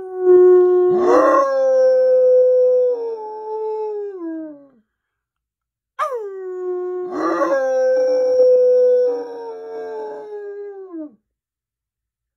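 A black-and-tan bloodhound howling: two long howls of about five seconds each, about a second apart. Each starts with a falling slide, holds a steady pitch and drops away at the end.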